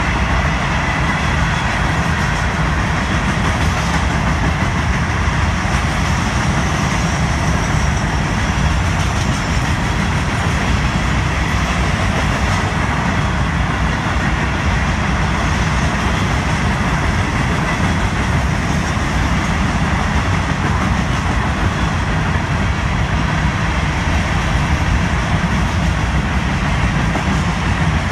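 Florida East Coast Railway freight train's hopper cars rolling past, steel wheels on rail making a steady, continuous rumble.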